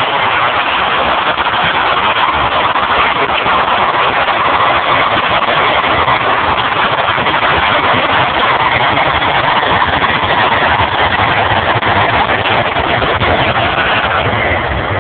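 Boeing 767-300 jet airliner at takeoff power. Its twin turbofan engines make loud, steady jet noise as it rolls past, with a faint whine that glides in pitch.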